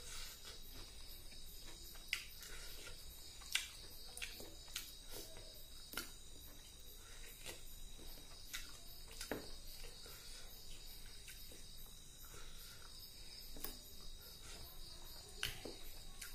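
Close-up eating sounds: scattered wet clicks and smacks of chewing and of fingers mixing rice with fish curry. Under them is a steady high-pitched chirring of crickets.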